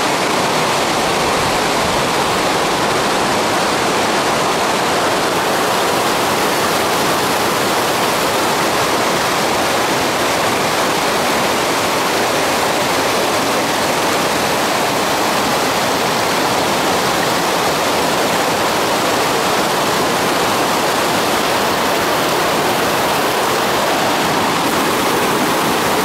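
Spring-fed stream feeding the Jordan River, its fast white water rushing and splashing over rocks in a steady, loud rush.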